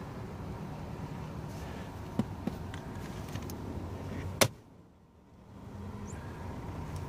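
Rustling as a gloved hand works over a car seat's leather and plastic trim, with two light clicks a little past two seconds in and one sharp click about four and a half seconds in. After the sharp click it goes nearly quiet for about a second, then the rustling returns.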